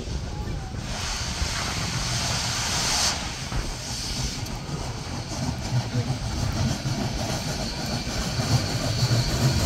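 Union Pacific Big Boy No. 4014, a 4-8-8-4 articulated steam locomotive, approaching at slow speed. A loud hiss of steam runs from about one second in to about three seconds in, over a low rumble that grows louder as the engine nears.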